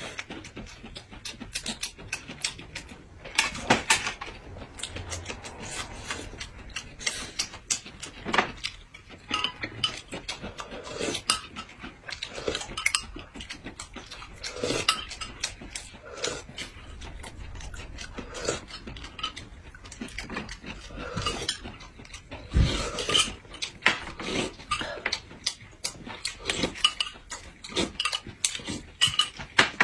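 Two people eating: chewing and lip-smacking, sips from a glass of drink, and chopsticks and spoons clicking against dishes, as a dense, irregular string of short mouth and tableware sounds.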